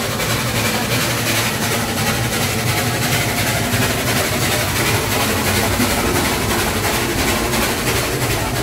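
Steam-hauled vintage train at speed, heard from inside a wooden carriage with open windows: a steady rumble of wheels on the track and rushing air, while a second steam locomotive runs close alongside on the parallel line.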